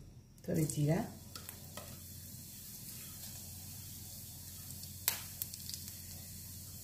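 Cumin seeds tipped into hot oil in a stainless-steel pan and sizzling steadily, with a few sharp pops about five seconds in. A brief louder sound with a wavering pitch comes just before the sizzle starts.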